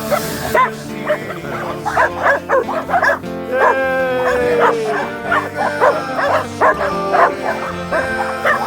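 Several dogs barking and yipping in short, overlapping bursts while they play, over music with steady held notes.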